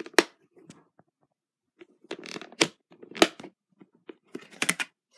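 A hard plastic food container handled by hand, its lid clip latches snapping with several sharp clicks over rustling.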